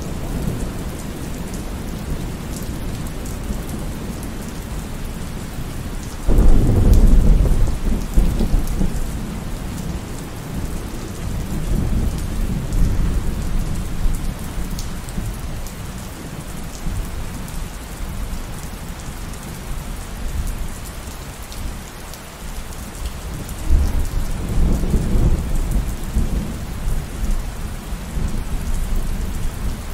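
Steady rain with thunder: a sudden thunderclap about six seconds in that rumbles on for a few seconds, then a second, softer roll of thunder near the end.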